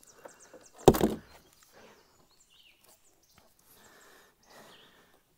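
A single loud knock with a splash about a second in, as a freshly landed musky thrashes against the side of the kayak while being gripped. Faint handling sounds follow.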